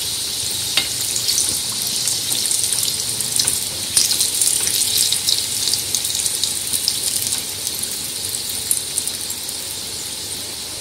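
Dal kachoris deep-frying in hot mustard oil: a steady, crackling sizzle with a couple of sharp clicks early on, easing slightly toward the end.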